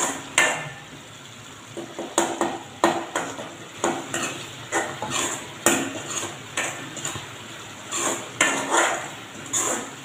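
A metal ladle scraping and clanking against the sides and bottom of a metal cooking pot while stirring a thick tomato-onion masala, in repeated strokes about two a second. The stirring keeps the masala from sticking to the bottom of the pot.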